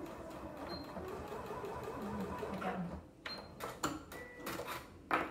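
Computerised domestic sewing machine running at a steady, even stitching rhythm as it sews through thick, wadded layers of fabric, then stopping about three seconds in. A few sharp clicks and knocks follow as the work is handled at the machine.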